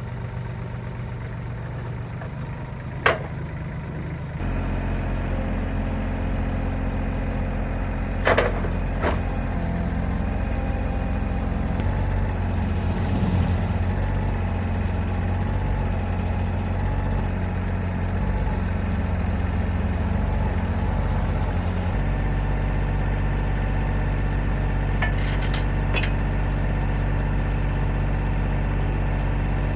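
Tractor engine running under load while trying to pull a stuck truck and log trailer through snow. It picks up speed about four seconds in and shifts pitch again around twelve and twenty-two seconds. A few short sharp knocks come in between.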